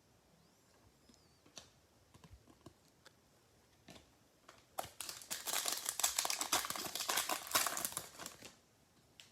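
A trading card pack's wrapper crinkling and tearing as it is opened, a dense crackle lasting about four seconds in the second half, after a few light scattered clicks.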